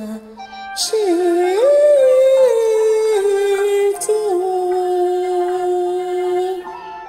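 Solo voice singing a slow Kunqu opera aria, unaccompanied or nearly so. About a second in a new phrase begins with an upward slide to a held higher note, then steps down and settles on one long sustained note.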